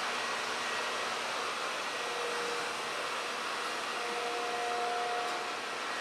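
Steady hiss of moving air, like a fan or blower running. Two faint, steady humming tones join about two seconds in and stop shortly before the end.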